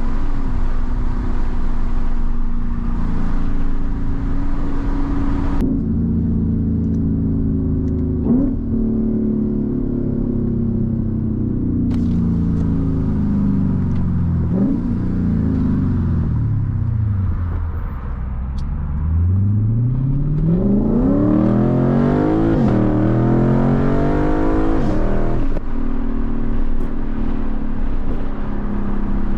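Lexus IS-F's 5.0-litre V8 engine under way: its note falls steadily as the car slows, with two short throttle blips along the way, then climbs again as the car accelerates hard and runs on steadily.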